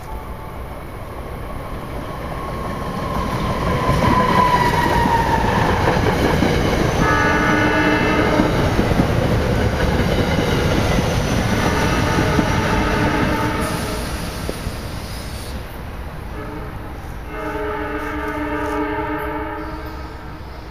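SEPTA Silverliner IV electric multiple-unit train passing at speed: the rumble of its wheels on the rails builds, stays loud, and fades as it goes by, with a whine that drops in pitch as it passes. Its multi-tone horn sounds three times, the last more softly.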